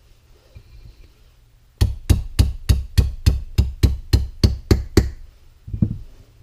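Metal pin being tapped into a shotgun's action: about twelve quick, evenly spaced knocks, roughly three a second, then a pause and one more knock near the end.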